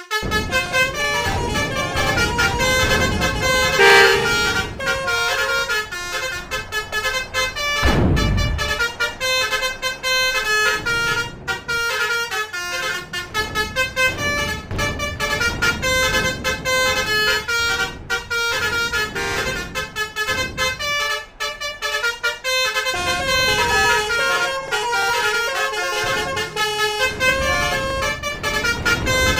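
Indonesian 'telolet' multi-tone bus horns playing quick, tune-like sequences of notes almost without pause. Heavy vehicles rumble past underneath, the strongest pass about eight seconds in.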